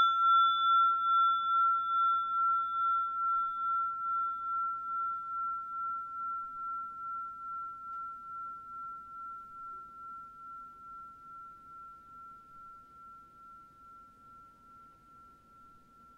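A struck bell ringing out and slowly fading, one clear tone with a gentle pulsing waver; a higher overtone dies away within the first few seconds.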